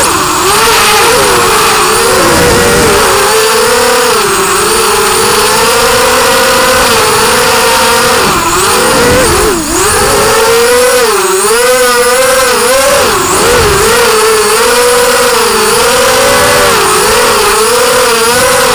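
Four 2204 brushless motors spinning 5x4.5 props on a quadcopter, heard from the craft's onboard camera: a loud buzzing whine that rises and falls constantly with throttle, dropping sharply for a moment about nine and a half seconds in.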